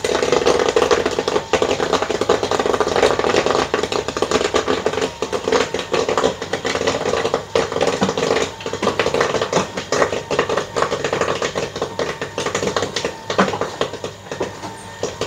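Popcorn popping rapidly in an electric-stirred popcorn pan on a gas burner, a dense crackle of pops with popped corn tumbling over the rim into the glass cabinet, over a steady hum. The popping thins out toward the end as the batch finishes.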